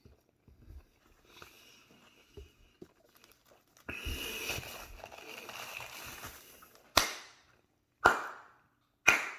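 Three slow hand claps about a second apart near the end, each sharp and quickly fading: a deliberate "80s slow clap" of approval. Before them comes a few seconds of steady rustling noise.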